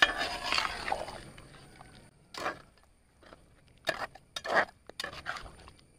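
Metal spatula stirring fish pieces in coconut-milk curry in a large aluminium pot: a wet swish in the first second, then several short scrapes and clinks of the spatula against the pot.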